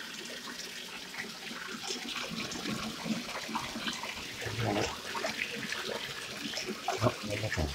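Water splashing and sloshing in a bathtub as a puppy paddles and scrabbles through shallow, sudsy bathwater, over a steady watery hiss.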